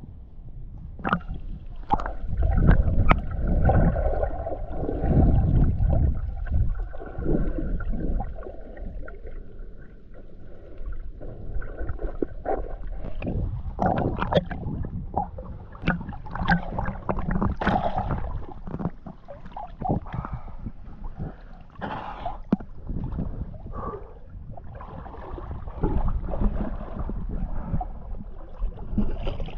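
Water sloshing and gurgling against an action camera held at the sea surface while snorkelling, with irregular splashes and low rumbling as the small waves wash over the housing.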